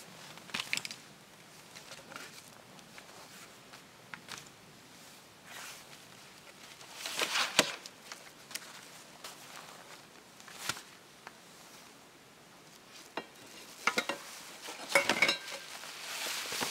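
Camping gear being unpacked from a plastic sled: nylon stuff sacks rustling and packed items knocking and clattering in short spells, with a few light clinks of dishes. The loudest handling comes about halfway and again near the end.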